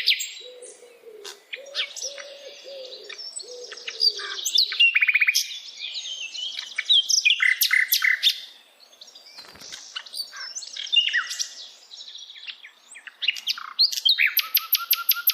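Several birds chirping and trilling in a busy mix of short calls, with a lower wavering call repeating underneath for the first few seconds. Near the end a fast, evenly spaced run of notes starts up, about five a second.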